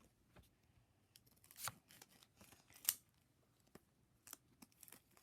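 Faint, scattered snips and crinkles of scissors cutting open a foil trading-card booster pack, the sharpest snip about three seconds in.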